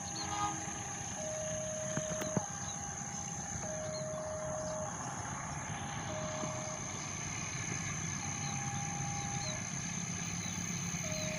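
Steady low vehicle rumble, with a repeating two-pitch tone that alternates about once a second and faint high chirps over it.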